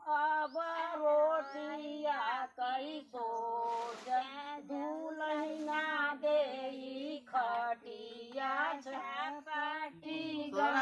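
Women's high-pitched voices singing a sohar, a North Indian folk song for a child's birth, unaccompanied, in long melodic phrases with short breaks for breath.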